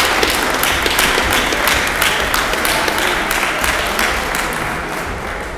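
Audience applauding, many hands clapping at once; the clapping thins out and dies away near the end.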